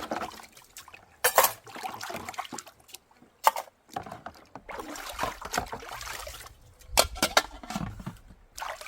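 Water splashing and trickling, broken by a few sharp knocks and clatter, loudest about a second in, halfway through and near the end.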